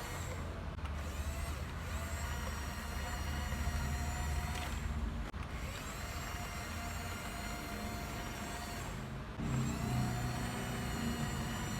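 RC toy bulldozer's electric drive motors and gearbox whining as it is driven. The whine breaks off briefly about five seconds in and comes back gliding up in pitch, then changes to a louder, lower hum from about nine seconds in.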